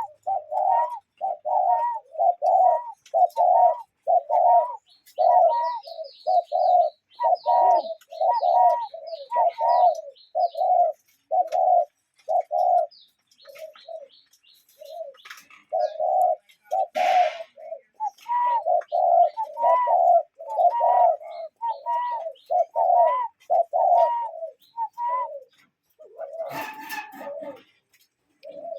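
A cuckoo calling over and over, two-part hooting calls repeated steadily about one and a half to two times a second, with a brief gap near the end. Another small bird chirps high and fast for a few seconds early on, and there is a short rustling burst about two-thirds of the way through.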